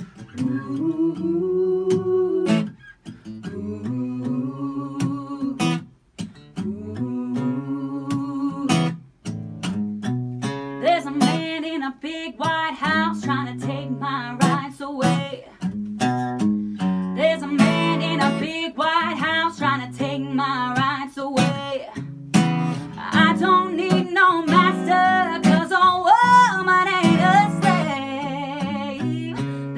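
Acoustic guitar strummed with a woman singing lead, a live acoustic song. The playing is sparse with short breaks at first, then fuller from about ten seconds in.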